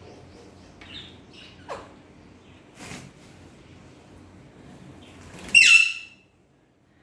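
Baby parrot calling: a few soft chirps and a short falling call in the first two seconds, then one loud, harsh squawk about five and a half seconds in.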